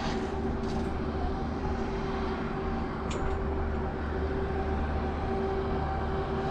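Steady machine hum with a low rumble and a few faint steady tones, typical of riding a ski chairlift. There is a brief sharp click about three seconds in.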